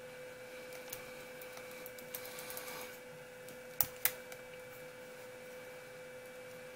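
Light clicks and taps of a plastic RC-car chassis brace and wheelie bar being turned over in the hands, with two sharper clicks about four seconds in. A faint steady hum runs underneath.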